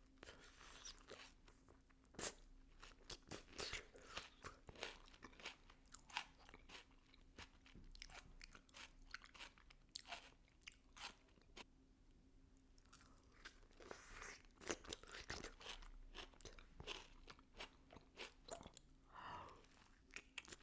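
Close-miked bites and chewing of a fresh, juicy plum: irregular crisp crunches and wet chewing clicks, with the sharpest bites about two seconds in and again near fifteen seconds.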